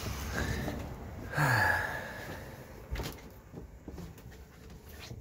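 A man's short sigh with a falling pitch about a second and a half in, then a single knock about three seconds in, with light footsteps and handling clicks as he walks through a caravan.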